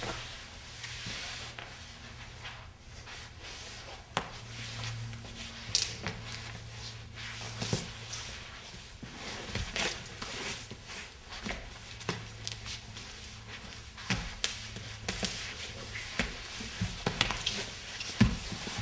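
Irregular scuffs, scrapes and soft knocks of a dancer's shoes, knees and lead-coated gloves moving on the floor, over a steady low hum.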